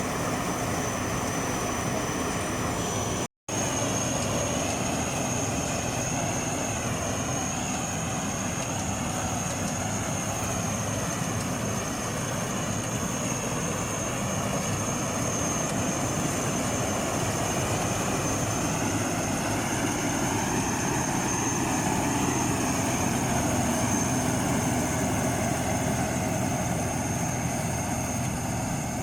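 Agrotech Eco combine harvester running steadily, its engine and machinery making a continuous drone with a thin high whine over it. The sound cuts out for an instant about three seconds in.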